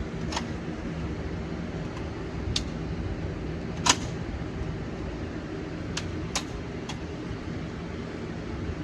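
Gunshots at a shooting range: about six sharp reports spread irregularly, the one about four seconds in by far the loudest, over a steady low rumble.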